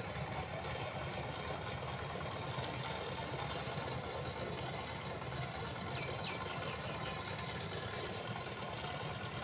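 Tractor engine running steadily as it ploughs the field.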